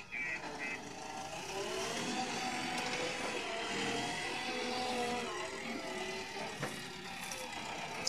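JCB 3DX backhoe loader's four-cylinder diesel engine revving under load as the loader arm raises a full bucket of soil, its pitch rising and falling slowly. A reversing beeper sounds briefly at the start and stops.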